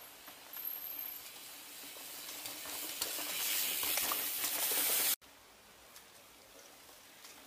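Mountain bike rolling down a dirt trail toward the microphone: a hiss of tyres on dirt that grows steadily louder as it nears, then cuts off suddenly about five seconds in, leaving a quieter background.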